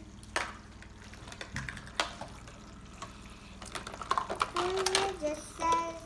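Thin stream of water trickling from a toy sink's faucet into a plastic basin, with plastic cups and dishes clacking a few times as they are handled. A small child vocalises near the end.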